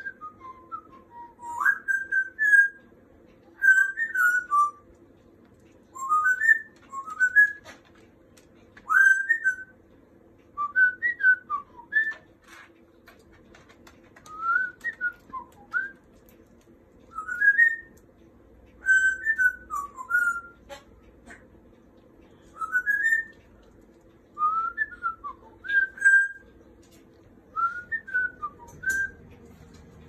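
Pet parrot whistling short gliding phrases, mostly rising, about one every two seconds, over a faint steady hum.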